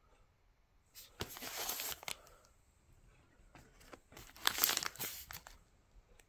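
Clear plastic sleeve pages of a zippered DVD binder rustling and crinkling as discs are handled in them, in two bursts, about a second in and again about four seconds in.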